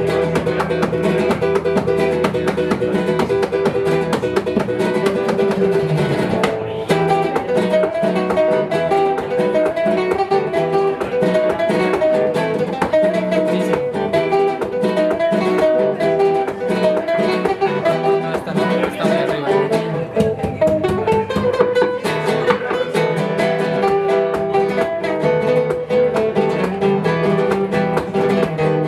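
Acoustic guitar music played live: quick runs of plucked notes over lower chord notes, with some strumming.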